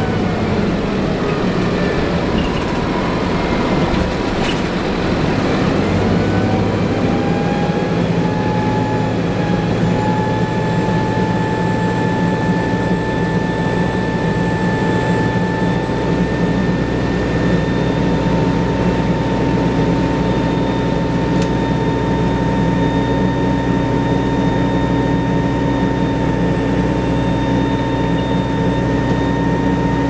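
Inside the cabin of a 1994 TMC RTS bus: the Detroit Diesel Series 50 engine and Allison VR-731 automatic transmission run with a steady drone and a whine. The whine rises in pitch over the first several seconds as the bus picks up speed, with a change in the engine note about six seconds in, then holds steady at cruising speed. The transmission's lock-up clutch is not engaging on this bus.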